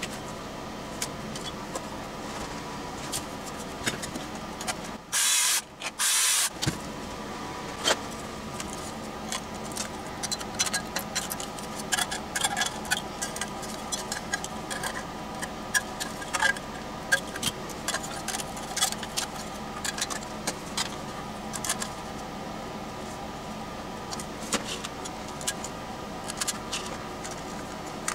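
Small metal parts and hand tools clicking and rattling on a workbench while screws are fitted to mount speaker terminals in an aluminium project box. Two brief, loud bursts of noise come about five seconds in, over a steady faint hum.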